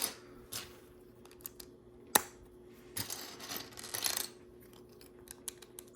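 Small plastic LEGO pieces clicking and clattering as they are handled and sorted, with a sharp click about two seconds in and rustling from about three to four seconds in.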